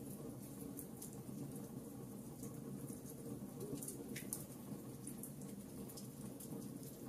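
Wood logs burning in a fireplace: a steady low rumble of flame with frequent small, irregular crackles and pops.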